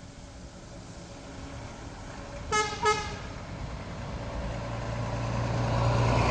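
Truck horn giving two short toots, then a truck's engine growing steadily louder as it approaches.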